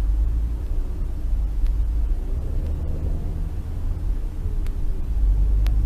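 Steady low engine and road rumble of a car picked up by its dash camera inside the cabin, with a faint engine hum drifting slowly in pitch and a few faint ticks.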